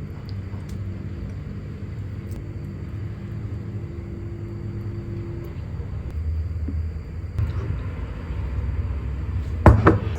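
A steady low rumble with a faint high whine over it, and a sharp clink of dishes near the end.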